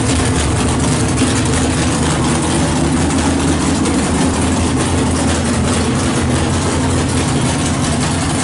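A 427 big-block V8 in a 1970 Chevy Nova drag car idling steadily.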